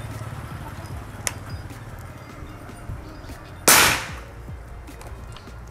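A single shot from a PCP air rifle, the Marauder Bulldog, about three and a half seconds in: one sharp crack with a short fading tail. It is fired on the full two-stage cocking for a chronograph velocity test. A light click comes a couple of seconds before it.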